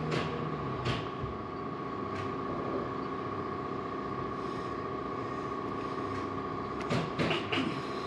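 Small clicks and knocks from a short-throw shifter unit being pushed and worked by hand into its housing: a couple near the start and a quick cluster a little before the end. A steady background hum runs underneath.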